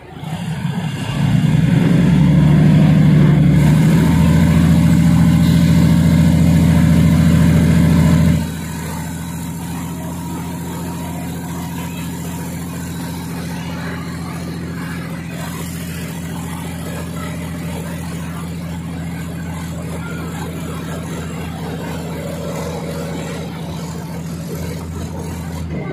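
A diesel train's engine works hard as the train pulls away from a stop, a loud, steady, low drone. About eight seconds in it eases off suddenly and runs on more quietly as the train rolls on.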